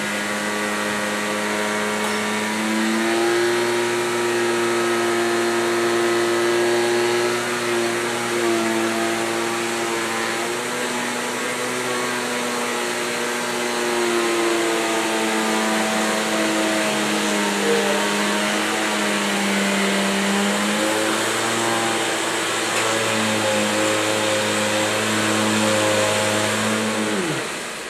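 Hoover Sensotronic System 50 canister vacuum cleaner running with its power nozzle, its motor whine shifting up and down in pitch as it works. Near the end it is switched off and the whine winds down.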